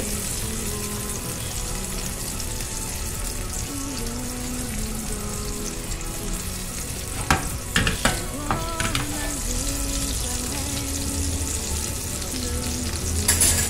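Ribeye steak frying in butter with garlic in a nonstick pan: a steady sizzle, with a few sharp clicks a little past halfway.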